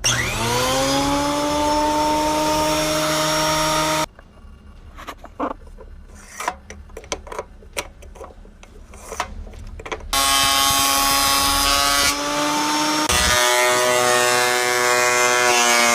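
Ryobi AP-10 benchtop planer motor switched on and spinning up with a rising whine, running about four seconds and stopping abruptly. Then come several seconds of knocks and clicks of handling, and about ten seconds in the planer runs again steadily, a test run after reassembly.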